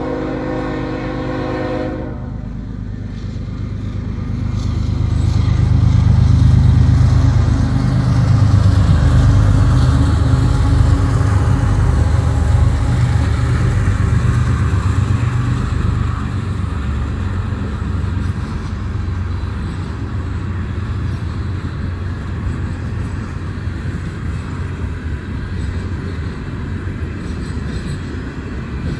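BNSF diesel freight train approaching and passing. The lead locomotive's horn sounds until about two seconds in. Then the locomotives' diesel engines pass close by, loudest about six to ten seconds in, followed by the steady rolling noise of the freight cars on the rails.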